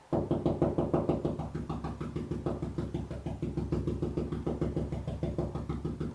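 Paintbrush dabbing paint onto a wall: a fast, steady run of soft taps, several a second, as the bristle tips are pressed in and worked back and forth to stipple a rolled-looking finish.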